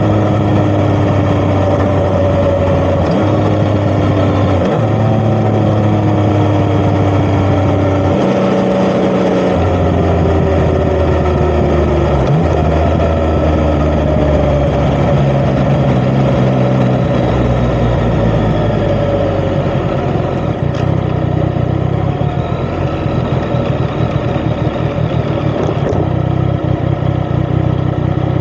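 Yamaha XSR900's inline three-cylinder engine through an Akrapovic titanium exhaust, heard while riding: the engine note falls in steps over the first dozen seconds, then runs lower and steadier.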